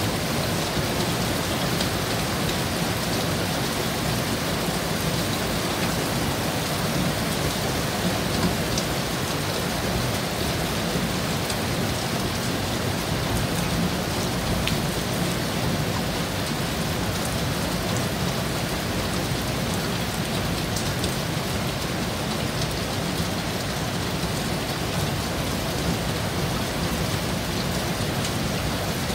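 Heavy rain falling steadily, a dense even hiss with scattered drops ticking close by.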